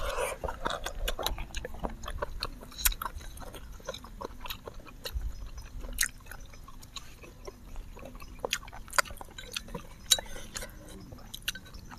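Two people chewing and slurping spicy instant noodles close to clip-on microphones: an irregular string of short, wet mouth clicks and smacks.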